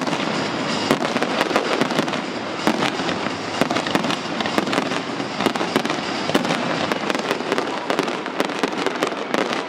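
An aerial fireworks barrage going off: many sharp bangs and pops overlapping in quick succession without a break, over a continuous din of bursting shells.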